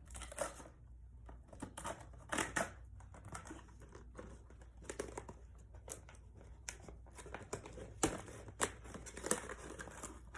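Toy packaging being opened by hand: crinkling and tearing with scattered sharp clicks and taps. The loudest clicks come about two seconds in and twice near eight seconds.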